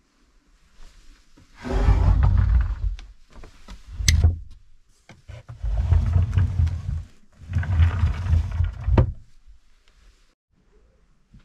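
Wooden under-bed drawers rumbling along their runners in three slides, with a sharp knock about four seconds in and another as a drawer shuts near the end.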